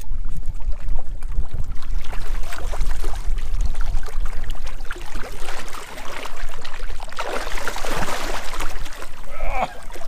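Water splashing and sloshing as a hooked lake sturgeon thrashes at the surface beside the boat, over a low rumble; the splashing is heaviest about seven to nine seconds in.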